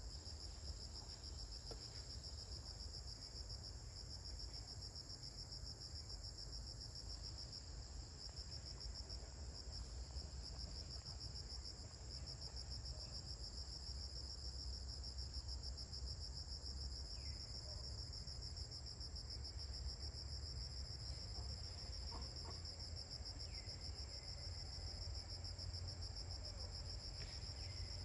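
Steady high-pitched insect chorus, a fast pulsing trill that carries on without a break, over a low rumble. A few faint short falling chirps come in during the second half.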